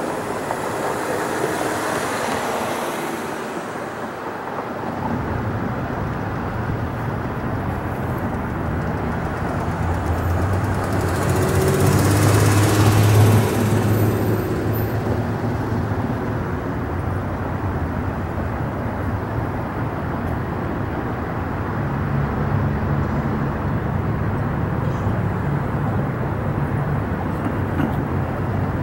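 Street traffic: vehicles pass close by twice, briefly in the first few seconds and more loudly around twelve seconds in, over a steady low hum.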